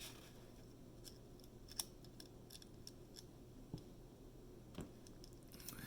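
Sparse faint clicks and ticks of a small flat-blade tool and ribbon cable being worked into the connector on a Google Home Mini's circuit board, over near-silent room tone.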